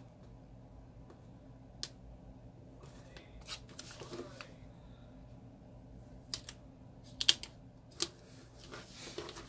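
Paper planner pages and washi tape being handled: scattered light taps, clicks and short rustles as tape strips are laid and pressed onto the paper, with one sharper click about three quarters of the way in.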